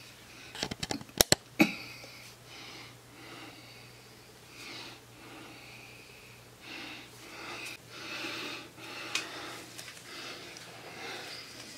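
Several sharp knocks and clicks about a second in, from handling at the work table. Then soft breathing and sniffing sounds close to the microphone, every second or so, over a faint low hum.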